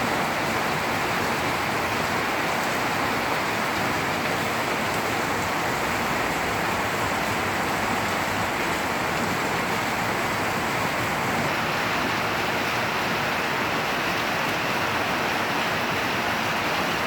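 Heavy monsoon rain pouring down in a steady, unbroken rush.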